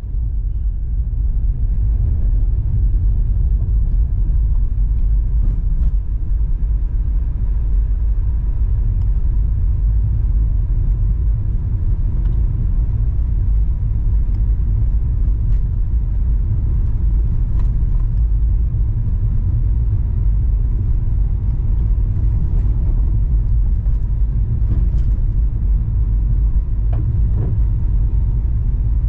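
Car driving along a road, a steady low rumble of engine and tyres, with a few faint ticks.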